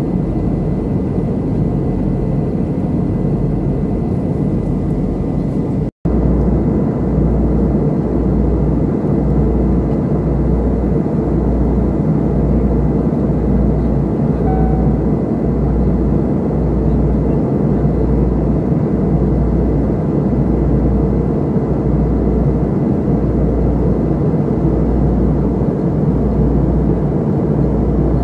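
Airliner cabin noise heard from a window seat: the steady rush of the engines and airflow. It cuts out for an instant about six seconds in, and after that a deep rumble underneath swells and fades about once a second.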